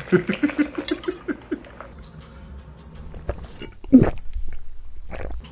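Liquid glugging in quick, even pulses as it is poured from a bottle into a plastic cup, then a loud gulp about four seconds in as it is drunk.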